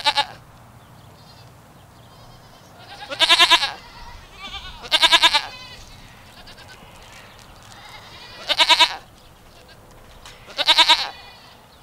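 Goats bleating: four loud, quavering bleats of about half a second each, a few seconds apart, with fainter bleats in between.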